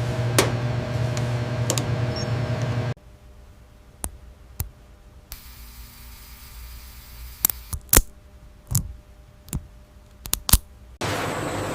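Steady machine hum for about three seconds, which cuts off suddenly. A quieter stretch follows with a dozen or so sharp, irregular clicks and taps, before a loud, even noise comes back near the end.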